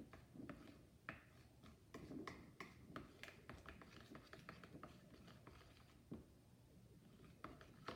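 Faint scraping and clicking of a mixing utensil stirring glue in a bowl, busiest in the first few seconds.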